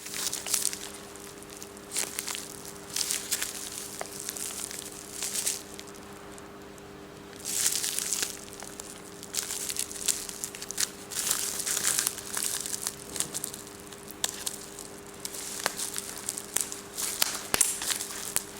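Plastic packaging crinkling and rustling in repeated bursts as a product is unpacked, with a steady low hum underneath.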